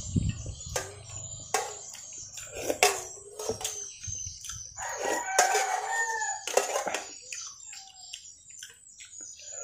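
Metal spoon clinking and scraping against an aluminium pot in irregular clicks. A rooster crows in the background about five seconds in, for over a second.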